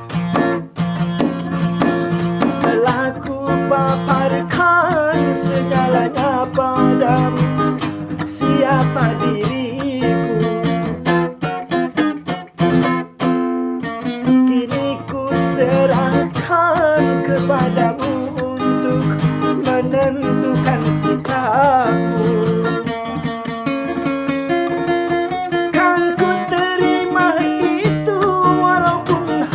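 Acoustic guitar playing a song's melody: a wavering lead line with bent notes over a steady picked bass, with a brief break about twelve seconds in.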